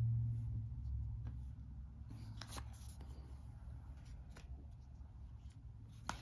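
Thick cardboard game pieces being handled and set down on a wooden table: faint rustling with a few light, irregular taps and clicks, the sharpest about two and a half seconds in and near the end. A low hum fades out during the first second.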